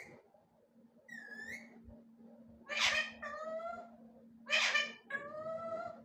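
Pet parrot calling: a short whistled note, then twice a loud harsh screech, each followed by a longer drawn-out falling call, meow-like in tone. A faint steady hum runs underneath.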